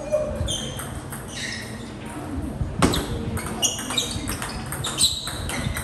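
Table tennis ball clicking off the table and the players' rubber bats in a quick rally of light pocks, with a sharper hit about three seconds in.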